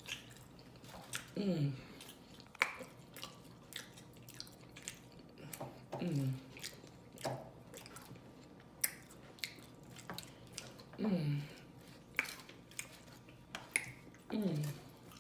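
Wet chewing and lip-smacking with many sharp mouth clicks, from someone eating a burrito. Four times, a short hum falls in pitch.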